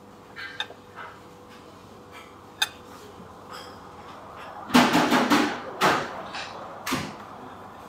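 Knife and fork clinking and scraping on a ceramic plate while cutting food: a few sharp clicks, then a busy run of clatter about five seconds in, and two more clinks near the end.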